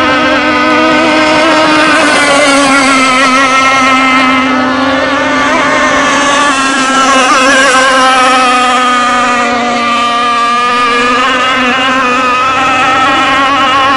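Radio-controlled hydroplane's small two-stroke engine running flat out as the boat speeds across the water, a steady high-pitched buzz. Its pitch sags slightly through the middle and climbs back about three-quarters of the way through.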